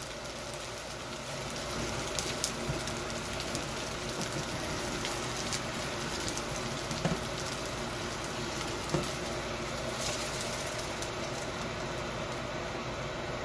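Stir-fry of shrimp and tofu sizzling in a hot wok, a steady hiss, with a few light clinks and scrapes of the spatula as the food is scooped out into a bowl.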